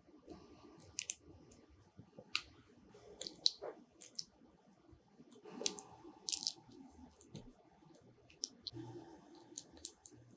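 A spoon scooping a wet corn, mayonnaise and cheese filling and pressing it into soft dough rounds: irregular light clicks and soft, wet squishes.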